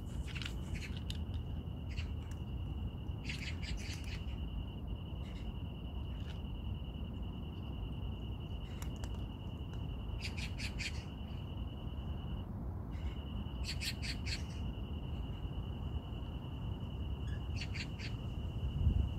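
Birds and insects calling outdoors. A steady high-pitched note runs on, breaking off briefly about two-thirds of the way through, and four short bursts of rapid chirping come a few seconds apart.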